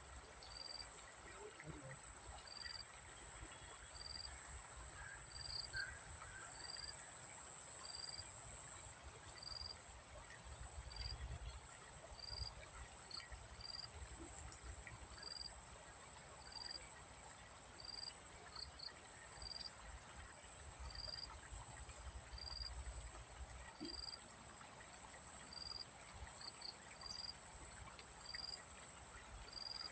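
Insects droning steadily in a high pitch, over a short chirp that repeats evenly about once every second and a bit. A faint low rumble lies underneath.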